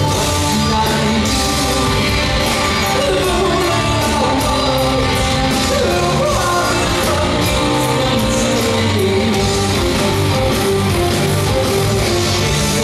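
Live rock band playing a song through a concert PA: electric bass, drums with cymbals and guitar, with a male lead vocal, loud and steady.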